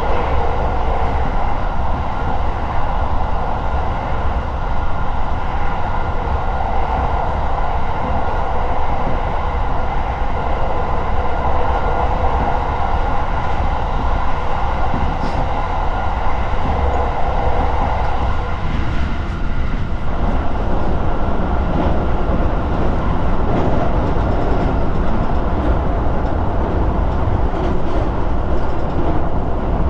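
Electric commuter train running at speed, heard from inside the car: a steady rumble and hiss of wheels on rail. Its tone shifts about two-thirds of the way through.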